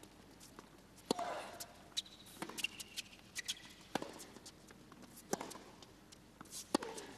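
Tennis rally: a ball struck back and forth by racquets, about five sharp hits roughly a second and a half apart.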